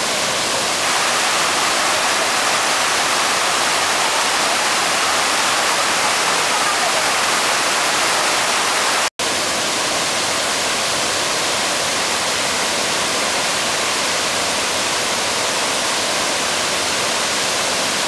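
Steady rush of Fukiware Falls, a broad, low waterfall pouring over a step in the riverbed rock into a narrow gorge, its flow light, perhaps from a water shortage. The sound cuts out for a split second about nine seconds in.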